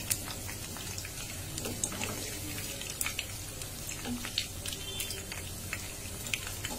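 Oil sizzling and crackling steadily around filled pitha pastries frying in a non-stick wok, with a wooden spatula turning them.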